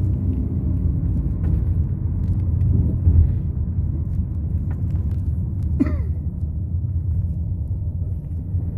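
Steady low rumble of a car's engine and tyres heard from inside the moving car's cabin. About six seconds in, one short gliding pitched sound cuts through.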